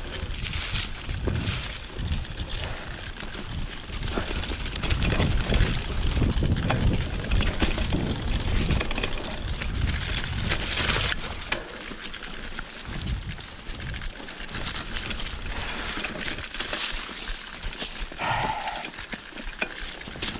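2020 Specialized Pitch mountain bike rolling downhill over a leaf-covered, rocky trail: tyres crunching through leaves and over stones, with the bike rattling over bumps. A heavy low rumble of wind on the camera mic eases off about halfway through.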